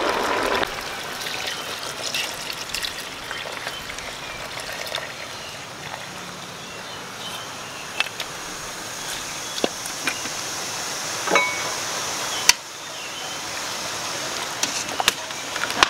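Boiled palm sugar syrup trickling through a plastic strainer into a large pot of boiled cassava and sweet potato, with light clicks of utensils against the pot. The pouring ends with a sharp knock about twelve seconds in.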